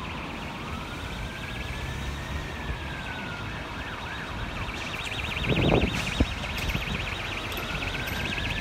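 Emergency vehicle sirens: a fast continuous warble with a slower wail rising and falling over it. A little past halfway there is a short loud rumble of noise, then a sharp click.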